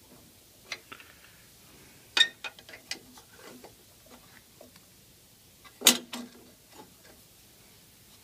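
Wrench clicking and clinking against the miter saw's fence bolts and metal table as the bolts are loosened: a few sharp, scattered metal clicks, the loudest about two seconds and about six seconds in.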